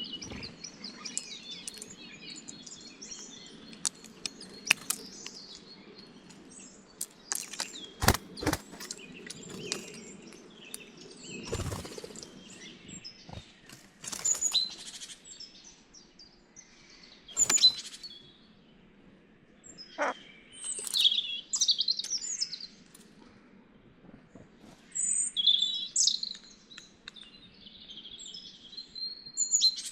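Small wild birds chirping and calling, with a fast run of high repeated notes in the first few seconds and a few sharp knocks spread through, the loudest about eight and eighteen seconds in.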